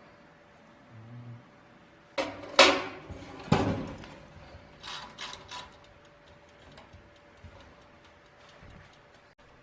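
A few sharp knocks and scrapes, the loudest about two to four seconds in, then lighter clicks, over a faint steady hum.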